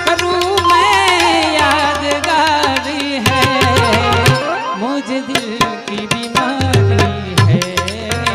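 Santvani bhajan music: a singer holds a long, wavering note that falls slowly in pitch over the first few seconds. Tabla strikes and a steady low drone run under it, and the melody then carries on with gliding phrases.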